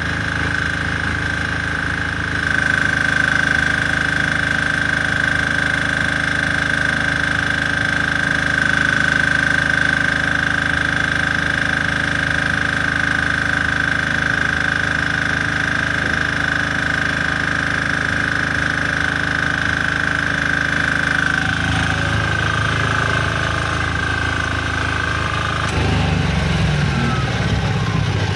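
M.C. Kawasaki DG8500WE welding generator engine running under load while a stick-welding arc burns steadily, from a couple of seconds in until near the end. When the arc stops, the engine note shifts.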